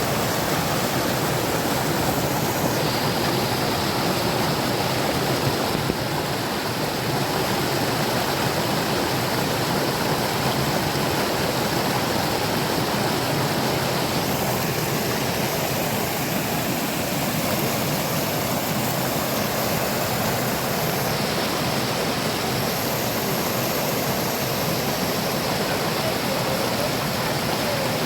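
Mountain water rushing steadily and loudly close by, a continuous even wash of running, falling water.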